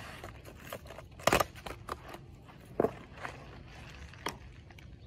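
Cardboard box and foam and plastic wrapping being handled and pulled apart, crackling and rustling, with three sharper knocks of cardboard.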